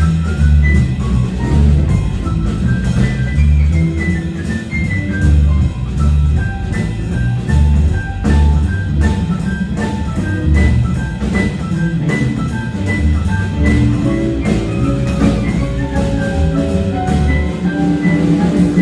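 Instrumental break of a band song with no vocals: a drum kit keeps a steady beat under a bass line while a high melody of short, separate notes plays.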